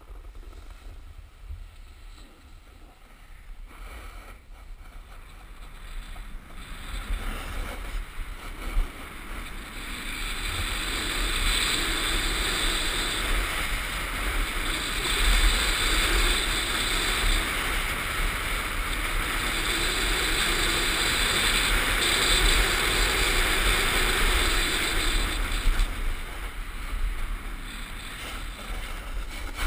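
Skis hissing and scraping over groomed snow during a downhill run, mixed with wind rumbling on the camera's microphone. It builds as speed picks up about six seconds in, stays loud through the middle, and eases a little near the end.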